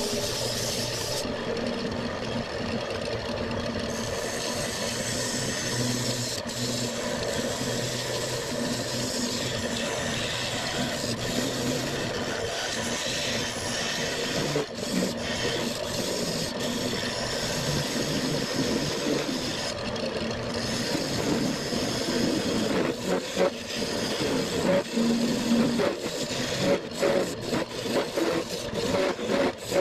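Turning chisel cutting a spinning maple block on an old Craftsman wood lathe: a steady scraping, rasping noise that turns choppy and uneven over the last several seconds as the cuts come and go.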